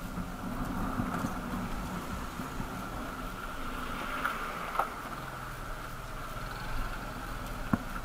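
Motorcycle engine running at low speed on a rough, broken road, with sharp knocks about five seconds in and again near the end.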